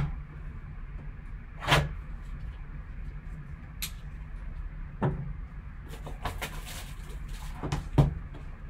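Gloved hands opening a shrink-wrapped cardboard trading-card box: plastic wrap crinkling and tearing, with a few sharp knocks of the box against the table, over a steady low hum.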